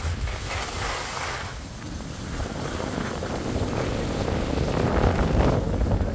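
Wind buffeting the microphone: a rumbling noise that comes in gusts, growing louder about four to five seconds in.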